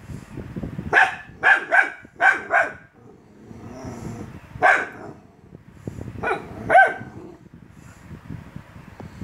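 A small dog barking in short sharp yaps: a quick run of five, then one more, then two, barking at its own reflection in a mirror.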